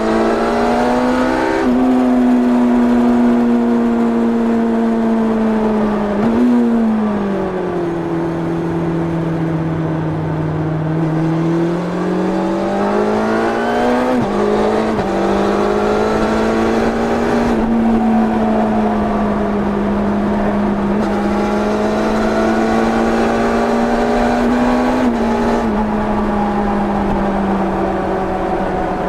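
1990 Yamaha FZR 600's inline-four engine through its stock exhaust, heard onboard while riding. The engine pitch falls about six seconds in, is lowest around ten seconds, climbs back by about fourteen seconds, then holds fairly steady with small steps.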